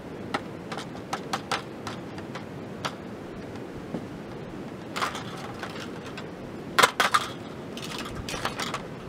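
Hinged wire grilling basket clinking and rattling as it is handled and closed over a thin flatbread dough: a run of light metallic clicks, with the loudest clatter about seven seconds in, over a steady background hiss.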